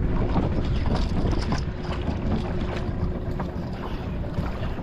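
Wind rushing over the microphone and choppy water slapping against the hull of a small fishing boat, with scattered light knocks and a faint steady hum underneath.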